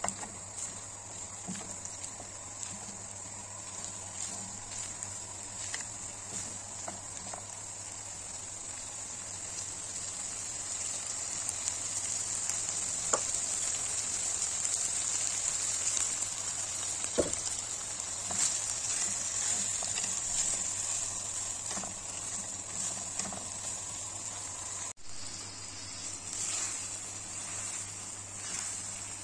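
Shrimp, broccoli and carrots sizzling steadily in a hot wok, the sizzle swelling louder in the middle, with a few light clicks of the spatula against the pan. The sound drops out for a moment near the end.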